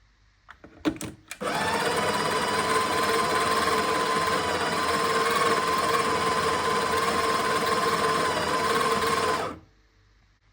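Sage espresso machine running with a steady mechanical whine for about eight seconds. It starts after a few clicks a second in and cuts off sharply near the end.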